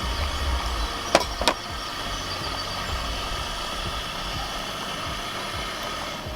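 Small camping stove running steadily under a pot of water that is nearly at the boil, with two sharp clicks just over a second in.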